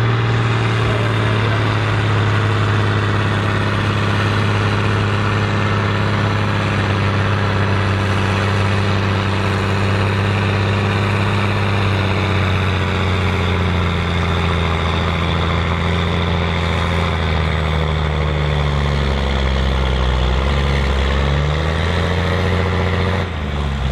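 Fendt 824 Favorit tractor's diesel engine running flat out while pulling a weight-transfer sled. It holds a steady note at first, then sinks slowly in pitch from about halfway through as the sled's load drags the revs down. The sound drops off abruptly just before the end.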